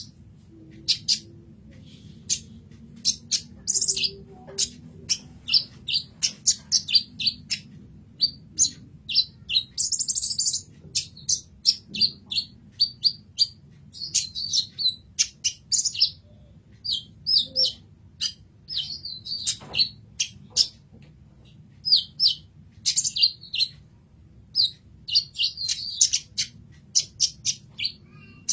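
Kolibri ninja sunbird singing: a fast, continuous run of short, high chirps and trilled phrases, with brief gaps between bursts. A low steady hum sits beneath the song.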